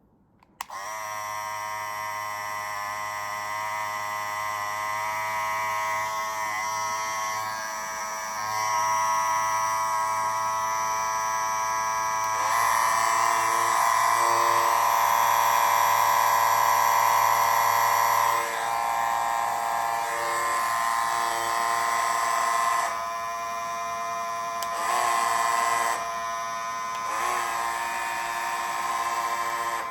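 Andis Cordless Master cordless hair clipper running: a steady electric buzzing whine that starts just under a second in. Its loudness and tone shift a few times, with brief rising glides.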